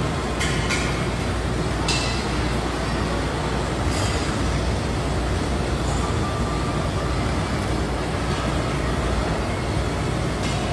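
Steady rumbling room noise of a gym floor, with a few light metallic clicks from the weight machines.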